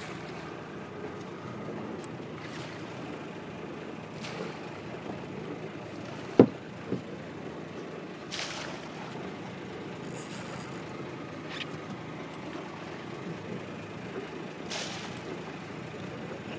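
Steady low rumble of a small boat on the water. About six and a half seconds in there is a loud short thump, followed half a second later by a smaller one.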